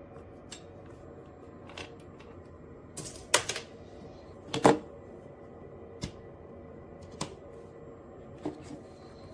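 A series of separate sharp clicks and knocks, about seven in all, the two loudest about three and a half and four and a half seconds in, over a faint steady hum.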